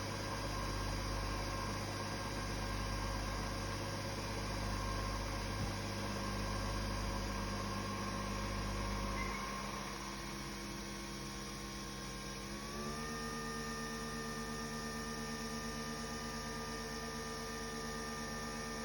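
Nespresso coffee machine running as it brews, a steady mechanical hum. About nine seconds in the deep low hum drops away, and near thirteen seconds the tone glides up and settles at a higher steady pitch.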